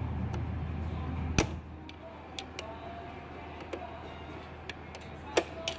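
Scattered sharp metal clicks and taps of hand tools working on an outboard's lower unit, the loudest about one and a half seconds in and another near the end, over a low hum that stops about one and a half seconds in.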